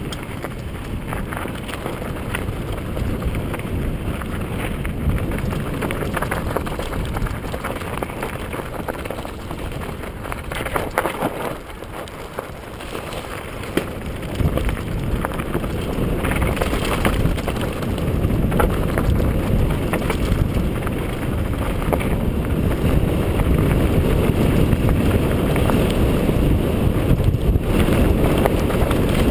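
Mountain bike rolling down a loose gravel trail, its tyres crunching and the bike rattling over stones, with wind rushing over the helmet camera's microphone. The noise grows louder over the second half.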